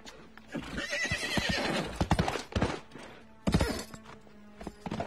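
A horse whinnying, one wavering high call about a second in, followed by hooves clopping and thudding in scattered knocks.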